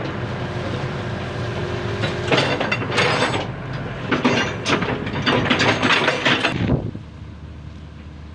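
Heavy construction machinery engine running steadily, with loud bursts of metallic clanking and grinding from about two seconds in, as an excavator pulls a stuck backhoe loader. The clanking stops near the end and the engine sound falls quieter.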